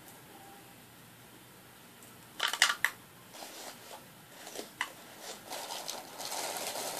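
Round beads being handled and added to homemade slime: a quick clatter of small clicks about two and a half seconds in, then a few scattered single clicks and a rustle building near the end.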